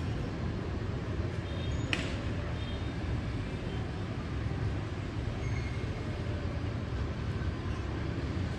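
Steady city traffic noise, motorbikes and cars on wet streets, with a low rumble throughout. A brief high chirp sounds about two seconds in, and a few faint short high tones come and go.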